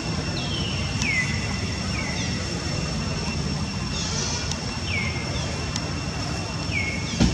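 Forest ambience: a steady low rumble under a faint, steady high drone, with a short whistled call that falls in pitch, repeated every second or two. A dull thump near the end.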